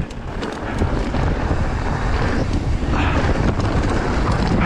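Wind rushing over the camera's microphone as a mountain bike rolls along a rocky dirt trail, with steady low rumble from the tyres on loose gravel and a few light rattles from the bike.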